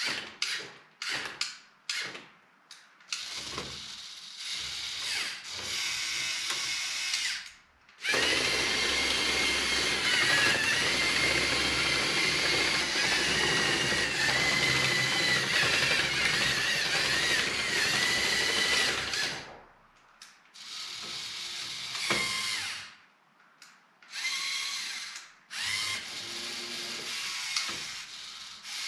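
Small electric motors and gearing of a LEGO Technic tracked RC straddle carrier whirring, drill-like. They run in short stop-start bursts, then continuously for about eleven seconds with a wavering whine, then in short bursts again.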